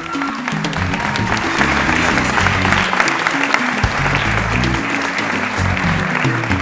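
Audience clapping over recorded music with a stepping bass line; the applause swells about half a second in and tapers off near the end.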